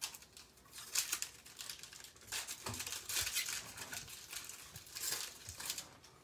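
Upper Deck hockey trading cards being handled and flipped through by hand: a run of light papery flicks and rustles, busiest about two and a half to three and a half seconds in and again around five seconds.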